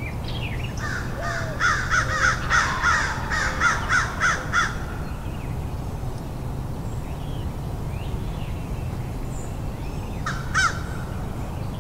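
Crow cawing: a fast run of about a dozen caws lasting about four seconds, then a single call near the end.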